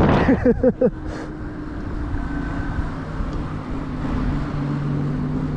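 Huck Cycles Stinger 3000 electric moped riding along a street: steady wind and road noise with a faint, even electric-motor hum. In the first second a brief loud rush comes with a few short wavering sounds, then the ride settles back to the steady noise.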